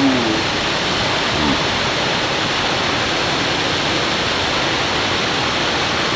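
Waterfall: falling water making a loud, steady rush.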